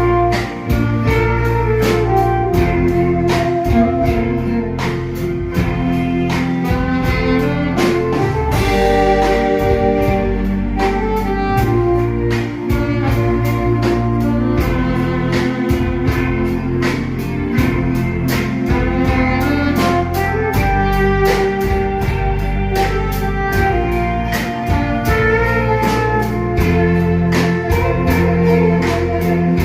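A band of drums, bass guitar, keyboard, electric guitar and saxophone playing a trot ballad, over a steady drum beat.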